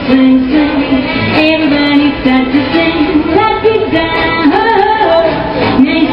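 Woman singing into a microphone over backing music played through a loudspeaker, her melody moving in long held notes.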